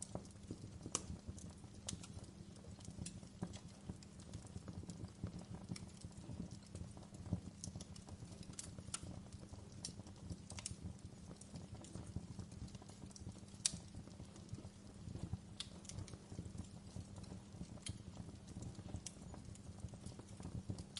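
Campfire crackling: irregular sharp snaps and pops, a few of them louder, over a low steady rumble of the burning fire.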